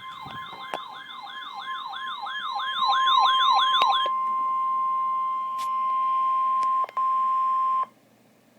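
NOAA Weather Radio's steady 1050 Hz warning alarm tone sounding for a Special Marine Warning. For the first four seconds a warbling siren-like alert sweeps up and down over it about three times a second, growing louder. The steady tone then runs on alone, drops out for an instant, and cuts off shortly before the end.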